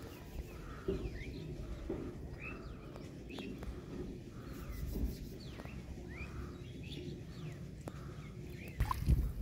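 Birds chirping and calling repeatedly over a low outdoor rumble, with a louder low rumble near the end.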